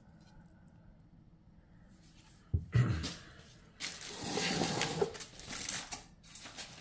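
Handling noise at a small fire in a foil-lined bowl: a sudden knock about two and a half seconds in, as the metal blade is lifted out of the bowl, then about two seconds of rustling and crackling.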